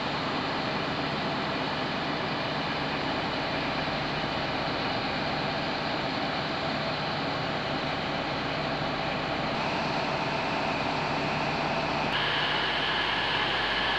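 Steady drone of a stationary train: a Class 43 HST diesel power car idling at the platform, with a low hum under the noise. The tone shifts abruptly near the end.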